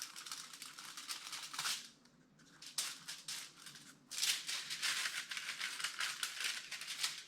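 Brisk, scratchy scrubbing of paint onto paper in three spells, the longest from about four seconds in to the end.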